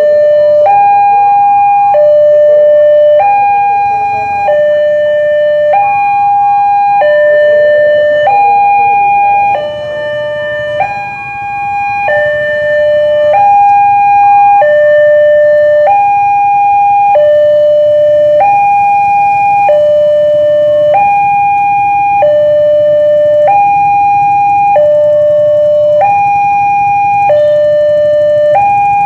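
Railway level-crossing warning signal sounding its electronic two-tone alarm, alternating steadily between a higher and a lower tone while the barrier is down and a train is due.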